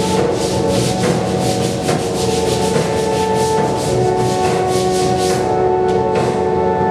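Charcoal scraping across a large sheet of paper in rapid repeated strokes, about three or four a second, over background music with long held notes. The strokes stop about five and a half seconds in.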